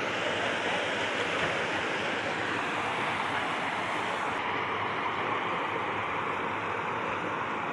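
Steady rushing of running creek water, an even hiss-like wash that holds level throughout.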